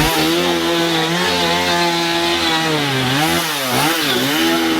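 An engine running at a steady, high-pitched drone, dipping in pitch a couple of times past the middle before settling back.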